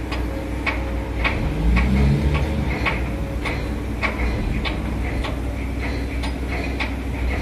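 Low, steady rumble of a small boat's engine, with a sharp tick repeating about twice a second over it.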